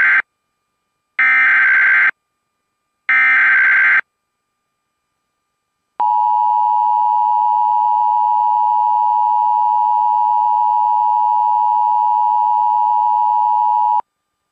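Emergency Alert System SAME header: the end of one burst of digital data screech and two more full bursts, each about a second long with a second's gap between. After two seconds of silence comes the steady EAS attention tone, held for about eight seconds and cut off sharply.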